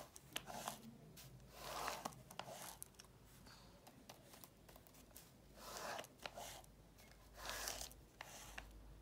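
Faint rustling and scraping of a hand sliding over embossed braille paper, in several soft swells with a few light clicks.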